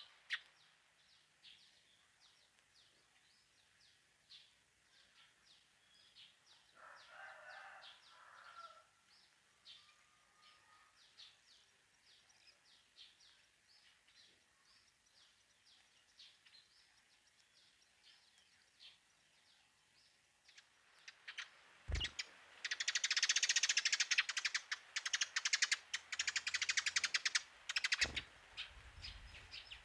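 Birds chirping with short, repeated high notes. About two-thirds of the way in comes a much louder burst of rapid, dense sound lasting around six seconds.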